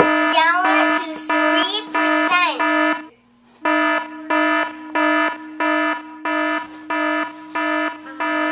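Electronic alarm beeping at about two beeps a second. Warbling tones sweep up and down over the beeps for the first three seconds, and a short gap follows just after three seconds.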